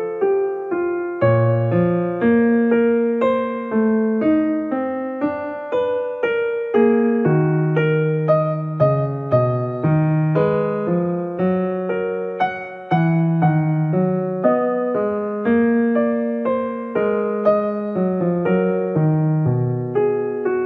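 Background piano music: a flowing melody of single notes over chords, each note struck and fading, at an even pace.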